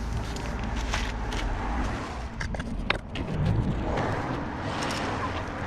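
Rear wheel of a 2010 Citroën C1 spinning freely by hand on its worn rear hub bearing, giving a steady low rumble with scattered clicks: the noise of a worn wheel bearing.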